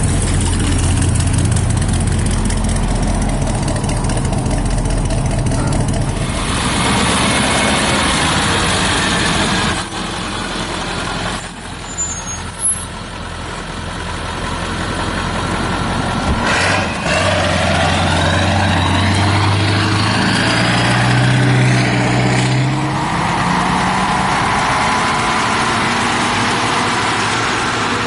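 Old trucks driving away: a low engine rumble, then a broader rush of noise as a truck passes. Later an engine speeds up, its pitch rising in steps as it shifts up through the gears.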